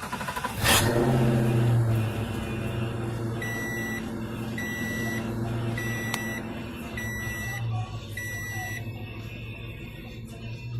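Mustang GT's 4.6-litre V8 cranked and started about a second in, running fast at first and then settling to a steady idle. Over it, a car's warning chime beeps five times, about once a second. The owners put the car's stalling and hanging idle down to bad gas.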